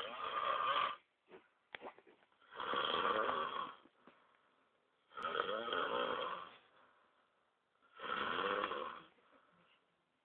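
Snoring in a steady rhythm: a snore roughly every two and a half to three seconds, each lasting about a second, with quiet pauses between.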